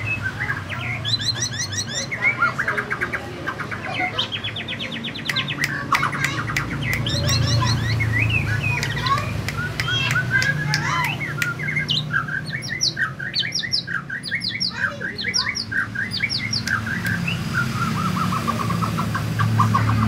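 White-rumped shama (murai batu) in full song, a long varied run of rapid trills, repeated sharp notes and whistled phrases, over a low steady hum.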